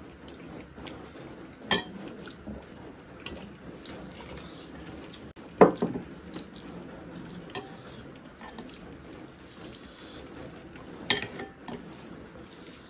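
Eating from steel plates: soft handling of rice and curry, broken by a few clinks of steel tableware. A single heavy clunk comes about halfway through, and a sharp clink near the end.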